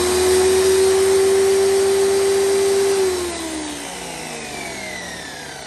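Electric pressure washer motor running with a steady whine. About three seconds in it cuts off and winds down, its pitch falling. It runs again now that the water-damaged GFCI plug has been replaced.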